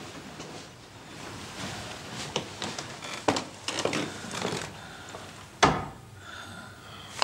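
Several hollow wooden knocks and thuds in a small room, with the loudest single knock a little before the end.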